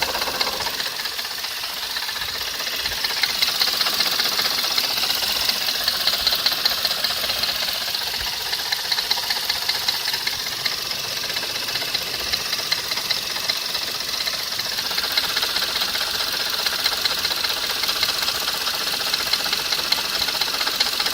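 Skoda Fabia RS engine running with a fast, steady ticking knock. The owner is unsure whether it comes from the engine itself or from one of the belt-driven ancillary units.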